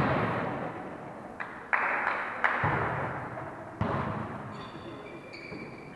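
A volleyball being struck during a rally: about five sharp hits in the first four seconds, each ringing on in the echo of a large sports hall.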